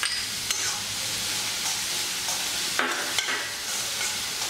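Diced vegetables sizzling steadily in hot oil in a stainless steel kadai while being lightly sautéed, with a metal spoon scraping and clinking against the pan as they are stirred, most sharply about three seconds in.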